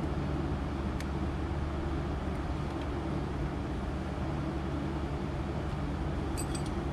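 Steady low machine hum at an even level, with a light click about a second in and a few small clicks near the end.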